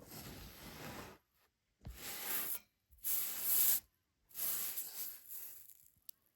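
Kinetic sand being cut and worked close to the microphone: four separate bursts of grainy, hissy rustling, each about a second long, then a small click near the end.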